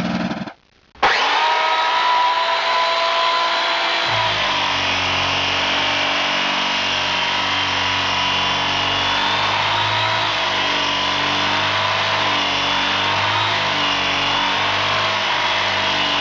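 Electric motor running with a steady high whine whose pitch wavers slightly; it cuts in about a second in after a brief gap, and a lower hum joins about four seconds in.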